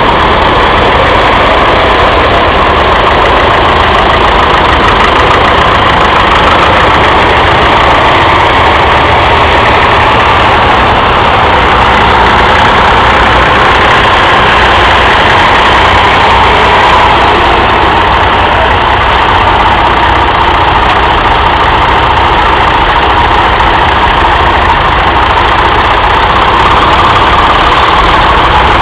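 Several vintage tractor engines, among them a Fordson Major's, running at low speed as the tractors pull away one after another: a loud, steady engine drone with no breaks.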